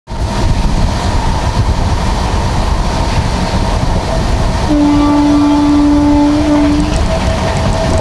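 Shatabdi Express train running at speed, a continuous rumble of wheels on rails and wind heard from an open coach doorway. About halfway through, the locomotive's horn sounds one steady blast lasting about two seconds.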